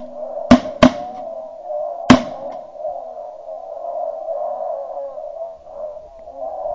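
Three shotgun shots: two about a third of a second apart, then a louder one a little over a second later. A continuous wavering, higher-pitched background sound runs under them.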